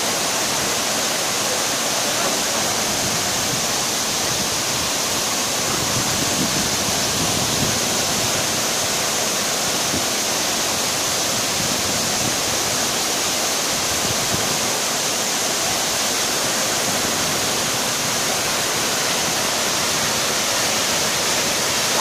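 Tall waterfall cascading down a rock face, heard close by as a steady, unbroken rush of falling water.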